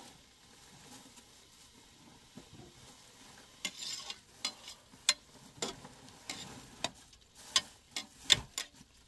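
Cooking at a metal pot on a small gas burner: a brief sizzle about three and a half seconds in, then a utensil stirring in the pot, giving a series of sharp metallic clinks.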